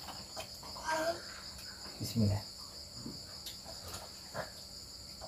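Crickets chirping steadily at night in a high, even chorus, with a few light clicks of plates and spoons.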